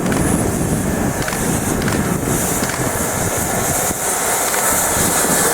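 A train running past: a steady rumble and hiss of wheels on the rails, the hiss growing stronger a few seconds in.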